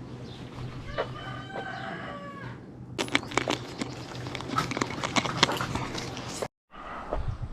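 A drawn-out bird call about a second and a half long, followed by several seconds of dense clicking and rustling that stops abruptly.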